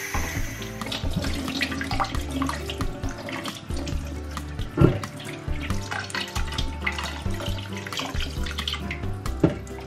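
Kitchen faucet running onto raw pork trotters in a steel sink, with splashing and the clack of metal tongs, and two sharper knocks about five seconds in and near the end. Intro music with a steady bass line plays underneath.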